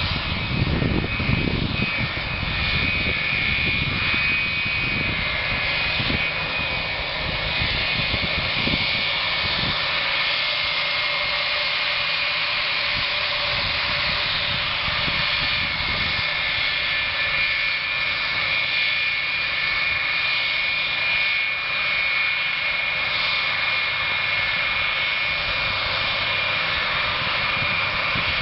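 Jet engines of a four-engine airliner running at low power as it taxis, a steady high whine over a hiss and low rumble.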